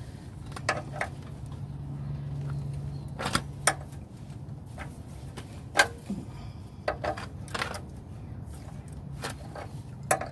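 Scattered sharp clicks and knocks, about eight of them with the loudest near six seconds in, as a wrench is fitted to the oil pan drain plug of a 1995 Chevy K2500 pickup's 5.7 L 350 V8 and worked to loosen it. A steady low hum runs underneath and swells between about two and four seconds in.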